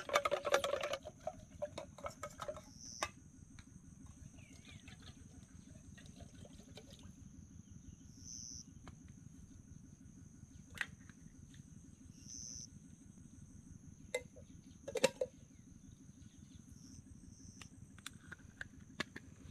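Insect chorus in the forest: steady high-pitched calling that runs on unbroken, with a few scattered sharp clicks and knocks, one a little louder about three quarters of the way through.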